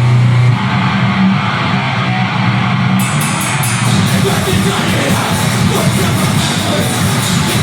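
Deathgrind band playing live at full volume: heavily distorted guitars and bass with drums. A low note held for about half a second gives way to dense, fast playing, and a run of cymbal strokes comes in about three seconds in.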